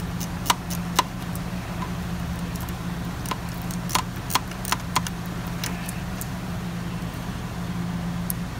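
Scattered sharp metal clinks as a socket wrench and a loosened Torx bolt are handled at the engine's oil filter housing, a cluster of them about four to five seconds in, over a steady low background hum.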